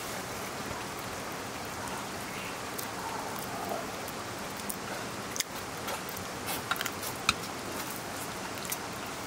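Steady, rain-like hiss with a few sharp metal clicks of a metal spatula knocking against a metal pot as rice is stirred and scooped, the clicks bunched a little past halfway.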